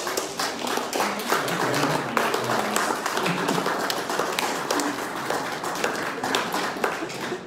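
Audience applauding: a crowd of hands clapping steadily and densely.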